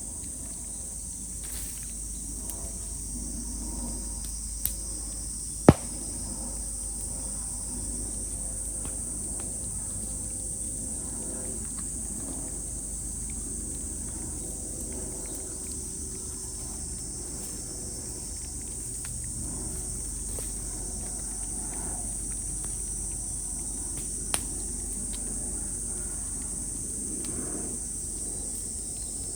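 Cicadas droning steadily at a high pitch, with a few sharp pops from bamboo burning in a bonfire; the loudest pop comes about six seconds in, and another comes near the end.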